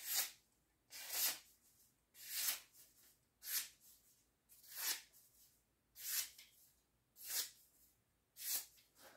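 Cold Steel OSS fixed-blade knife slicing through a sheet of paper, eight short papery hisses about a second and a quarter apart. These are paper-cutting tests of an edge freshly sharpened on an MDF wheel.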